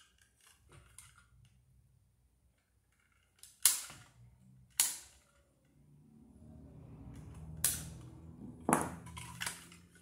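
Wire cutters snapping through electrical wires: four sharp snaps, two about a second apart and then two more a few seconds later. A low rumble runs under the later pair.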